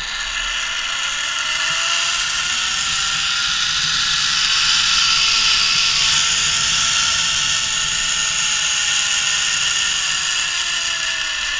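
Zipline trolley pulley running along a steel cable, with a whirring hum over a rushing hiss. The whir rises in pitch as the trolley gathers speed, peaks about halfway through, then falls as it slows near the end.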